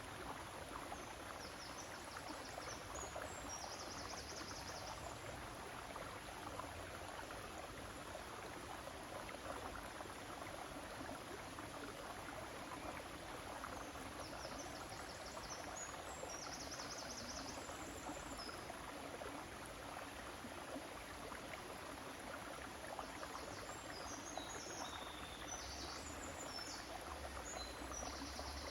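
River water flowing with a steady rushing sound. A small bird sings short high chirping phrases over it three times: near the start, about halfway through and near the end.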